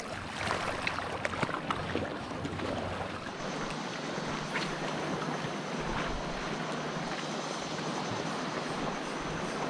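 Steady wind and water noise, with a few light ticks in the first two seconds; a faint steady hum joins about three seconds in.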